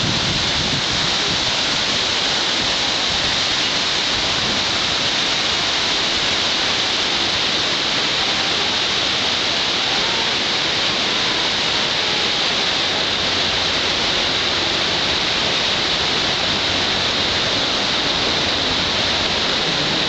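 Steady rush of the storm-swollen river Maas running high and fast, a constant even water noise.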